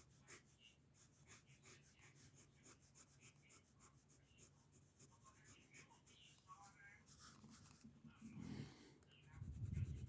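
Pencil scratching on paper in quick, short sketching strokes, several a second, faint. Near the end a louder low muffled rumble comes in.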